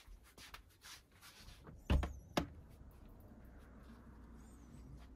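An interior door being handled: two sharp knocks about half a second apart, the first with a low thud, among soft clicks.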